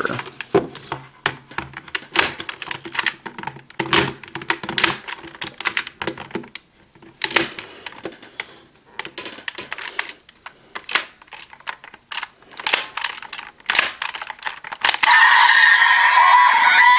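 Plastic clicks and clacks of a DX toy buckle being fitted and worked in the Desire Driver transformation belt, taking a few tries for the micro switches to register. About fifteen seconds in, the belt's speaker starts playing loud electronic music.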